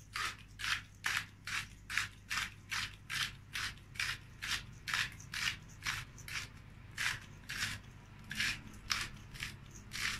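Handheld salt grinder twisted back and forth, crunching salt with a short rasp at each turn, about two to three turns a second, with a couple of brief pauses in the second half.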